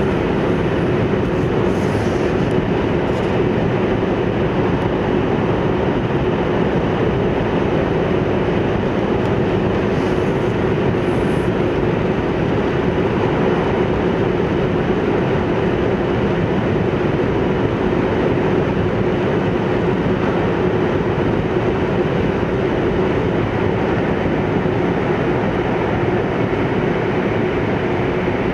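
Hayabusa shinkansen running steadily, heard from inside the passenger cabin: an even rushing running noise with a steady low hum.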